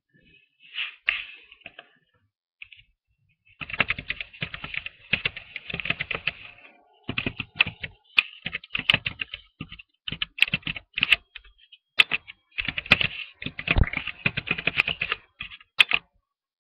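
Typing on a computer keyboard: runs of rapid key clicks in several bursts, with short pauses between them.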